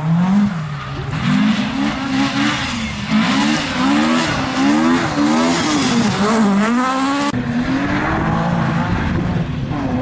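Rally car engines at full throttle on a gravel stage, the note rising and falling again and again through gear changes and lifts.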